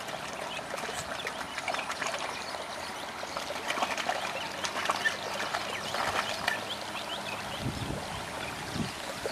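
Cono weeder pushed along a row of a wet rice paddy, its cone-shaped toothed rotors churning through mud and shallow water with irregular splashing and squelching.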